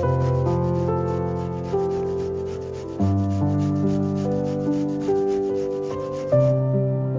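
Rapid, repeated rasping strokes of food being grated on a metal grater, which stop about six and a half seconds in, over soft piano music.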